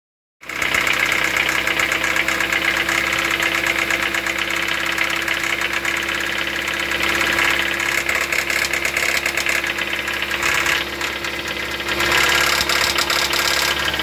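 Car engine idling with a loud, fast, steady knocking from its bottom end, taken for a rod knock.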